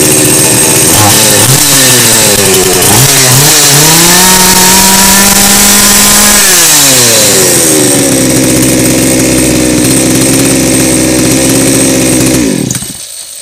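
Forte 52 cc two-stroke chainsaw engine running after its carburettor was cleaned and its L and H screws reset: it revs up and down, holds high revs for about two seconds, then falls back to a steady idle and is shut off near the end. It picks up revs well and idles normally, the gummed-carburettor fault cured.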